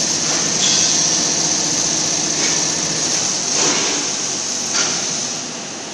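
CNC oxy-fuel and plasma gantry cutting machine in operation: a steady loud hiss with a few brief louder swells, easing slightly near the end.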